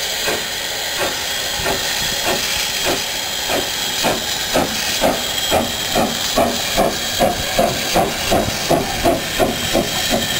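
SECR P class 0-6-0 tank locomotive No.323 'Bluebell' moving off under steam: chuffing exhaust beats that quicken and grow louder to nearly three a second, over a steady hiss of steam.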